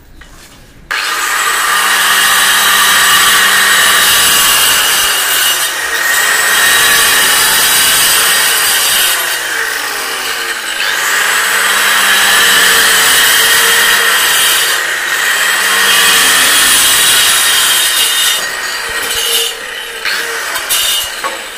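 Handheld electric tile cutter starting up about a second in and cutting straight lines through a ceramic wall tile to open a square hole for a switch box. The motor's whine is mixed with gritty grinding, and its note sags and recovers several times as the blade bites into the tile.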